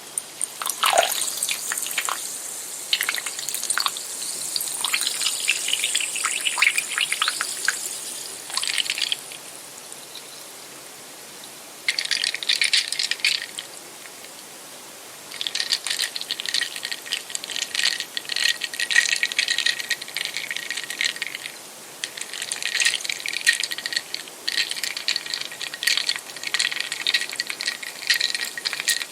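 Carbonated soda fizzing and crackling in several long bursts, with short pauses between them and a sharp click at the very start.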